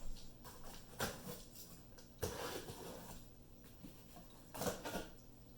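Shipping box being opened by hand and its packing handled: three short bursts of rustling and scraping, about one, two and four and a half seconds in.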